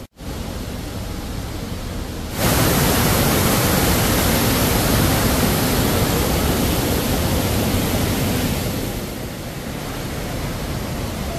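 Steady rush of falling water from a waterfall. About two seconds in it jumps louder and stays so until near the end, when it eases off somewhat.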